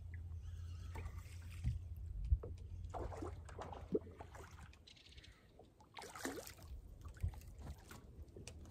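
A bass being reeled in and landed from a bass boat's deck: a low steady hum that fades after about three and a half seconds, with scattered knocks and clicks of rod, reel and boat handling, the loudest a sharp thump a little past two seconds in.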